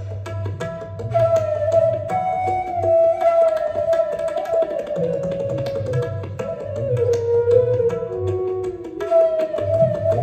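Bansuri (Indian bamboo flute) playing a Hindustani classical melodic line of held notes joined by slides, over tabla: crisp strokes on the small dayan drum and a low, resonant bass from the bayan.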